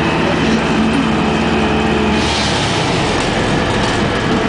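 Inside a 2002 Orion VII CNG transit bus under way: its Detroit Diesel Series 50G natural-gas engine running steadily, with road noise, and a brief hiss about halfway through.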